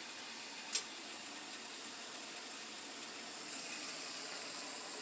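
Steady hiss of water boiling in a pot on a stove, a little louder from about three and a half seconds in. A single sharp click about three-quarters of a second in.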